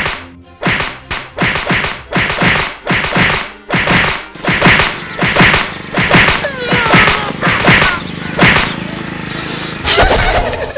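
A fast run of slaps and thumps as a man is beaten about the head and back by hand, about two and a half blows a second for some nine seconds.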